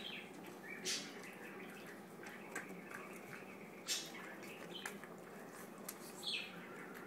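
Small dog licking and mouthing a banana, with wet smacking clicks, the loudest about one, four and six seconds in. A few short, high, falling chirps sound between the smacks.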